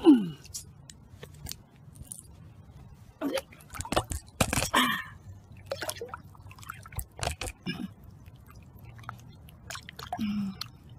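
Water splashing and sloshing in irregular bursts as a largemouth bass, held by the lip, is dipped and moved about in the water; the loudest splashes come about four to five seconds in.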